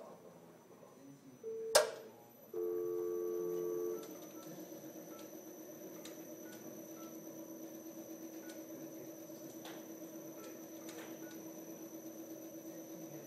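An ARE-500 unit gives a click and a short beep, then a loud two-tone beep lasting about a second and a half, then settles into a steady low hum with a faint fast flutter. This is the abnormal noise noted on its initial inspection.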